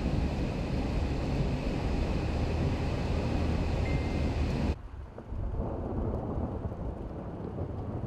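A steady low rumble of a vehicle driving on a snow-covered highway, heard from inside the cab, cutting off abruptly about five seconds in. It is followed by quieter, gusting blizzard wind buffeting the microphone.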